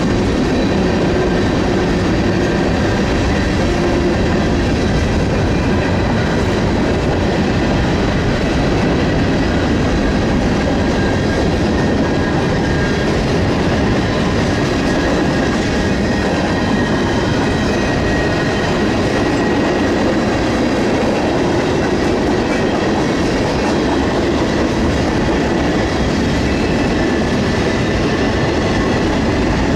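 Freight train of covered hopper grain cars rolling past close by: steady loud rumble and rattle of steel wheels on the rails, with clickety-clack as the wheels pass over rail joints and a faint high steady squeal.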